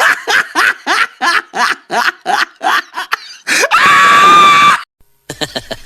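Hearty laughter in rapid 'ha-ha' pulses, about three a second, rising into one long high-pitched shriek of laughter that stops suddenly. After a brief gap, a quieter laughter recording starts over a low steady hum.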